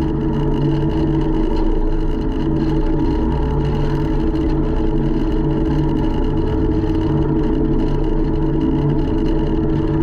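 Takeuchi TL150 compact track loader's diesel engine running steadily, heard from the operator's seat while it travels with a full bucket of loam.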